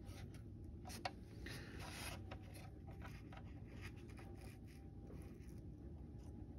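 Faint rubbing and scraping of hands working small plastic model kit parts, with one sharp click about a second in, over a low steady hum.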